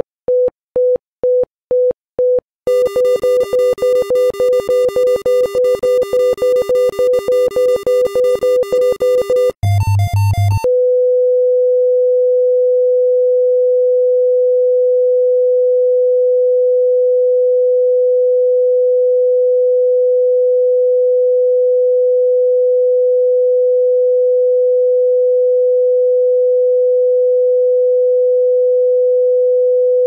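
Heart monitor sound effect: regular electronic beeps that quicken about three seconds in, with a second, lower tone joining them, as the heart rate rises. About ten seconds in comes a brief harsher alarm burst. The beeps then give way to one unbroken steady tone, the flatline of cardiac arrest.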